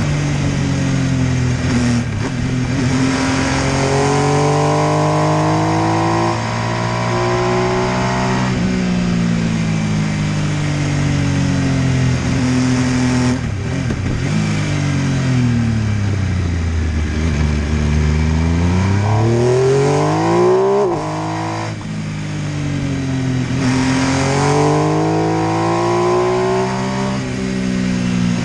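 MV Agusta F3 800's three-cylinder engine pulling hard through the gears, revs climbing and dropping back at each upshift. About halfway the revs fall away on a closed throttle and then climb sharply again, with more shifts near the end.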